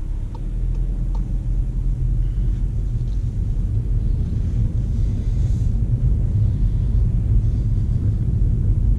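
Low, steady rumble inside the cabin of a 2015 Volkswagen Golf GTE pulling away, its 1.4 TSI petrol engine running in Battery Charge mode to recharge the hybrid battery, with the tyres rolling over a brick-paved street.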